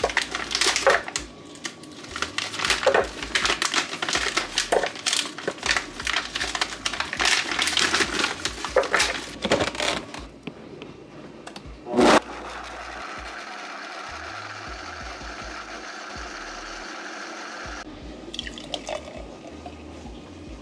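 Frozen fruit pieces dropped into a plastic blender jar with repeated knocks and clatters, and liquid poured in. About twelve seconds in there is one loud knock, then the blender runs steadily for about six seconds and stops abruptly.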